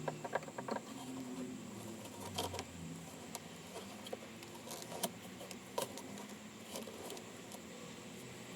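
Faint, scattered light clicks and ticks over a low steady hum.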